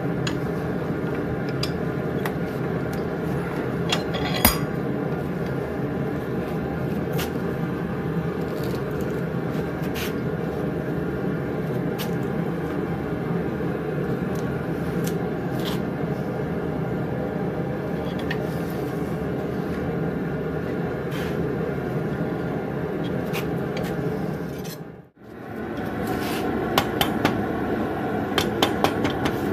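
Steady rushing noise throughout, with scattered light metallic clinks as a red-hot nail is twisted in a bench vise, and one sharp clank about four seconds in. Near the end, after a brief dropout, a run of quick knocks comes as a wooden mallet straightens the hot twisted handle on an anvil.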